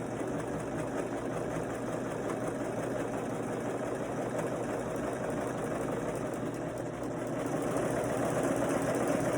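Husqvarna Viking Huskylock S25 serger running steadily as it overlocks the raw edge of a cloth diaper, growing a little louder near the end.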